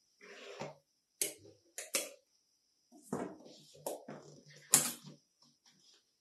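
Knife scraping around the inside of a metal springform cake pan to loosen a baked cake, then clicks and knocks of the knife and pan being handled as the cake is released, with one sharper knock just before five seconds in.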